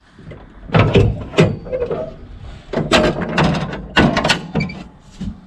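A run of knocks and clunks on the Land Rover Perentie's steel front end as tools and a case are lifted off it and the bonnet is lowered. The knocks come about a second in, around three seconds in and twice around four seconds in.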